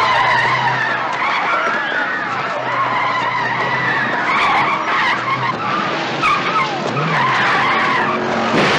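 Car tyres squealing again and again over a running engine, with a crowd shouting and screaming. A sharp crack comes near the end.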